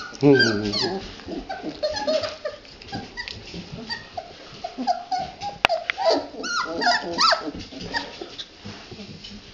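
A litter of young red standard poodle puppies squeaking and whining, with many short high-pitched cries overlapping one another. One sharp click comes a little past halfway.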